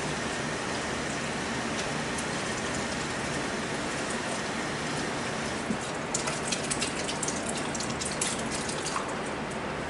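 Steady rushing hiss throughout, with rustling and light clicks from about six seconds in as hands are rubbed dry in a cloth towel.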